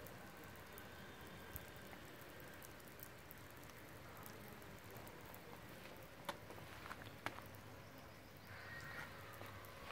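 Faint outdoor background with a few scattered sharp clicks, and faint brief high tones near the end.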